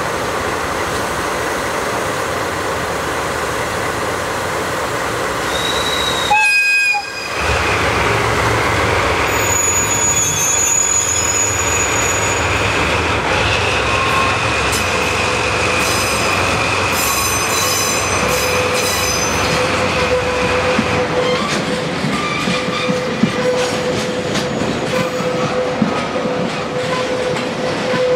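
A pair of DD51 diesel-hydraulic locomotives working with a train of tank wagons: a steady engine and running rumble with wheels clattering on the track. After a sudden break about seven seconds in it grows louder, with drawn-out high-pitched squealing from the wheels.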